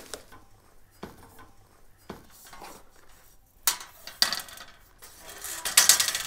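Folding two-tier metal grow-light stand being unfolded by hand: its frame and slatted shelves clink and clank. A few light knocks come first, then louder clatter in the second half, loudest near the end.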